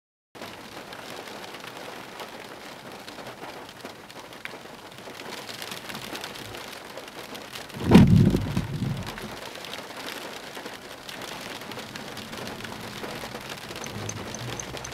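Steady rain that starts abruptly, with one loud clap of thunder rumbling about eight seconds in. Near the end a fast, high clock ticking comes in over the rain.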